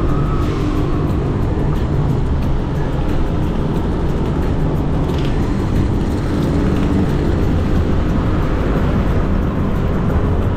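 Yamaha NMAX 155 scooter's single-cylinder engine running steadily while riding, under a heavy low rumble of wind on the helmet-mounted action-camera microphone.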